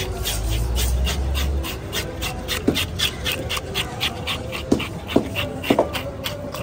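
An animal panting fast and evenly, about four pants a second, with a few short squeaks in the second half.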